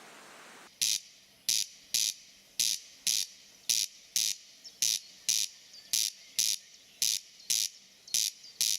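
A bird giving a short, harsh, rasping call over and over, about twice a second, starting just under a second in after a faint hiss.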